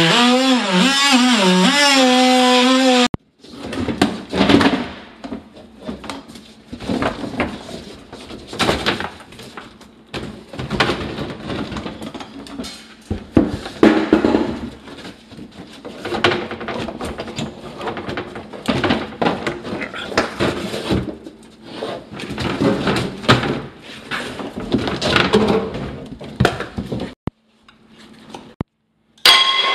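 An oscillating multi-tool runs for about the first three seconds, its buzz dipping in pitch as it bites into the wood, then stops. After that, the wooden sink-base cabinet is pried and torn apart with a pry bar: irregular knocks, cracking and clattering of panels. Near the end comes a short ringing metal clang.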